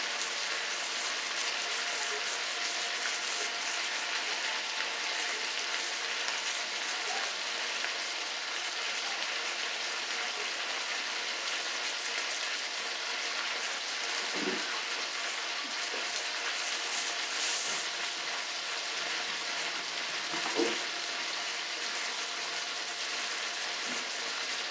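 Mushrooms and peppers frying in olive oil in a wok: a steady sizzle, with a couple of brief low knocks about 14 and 21 seconds in.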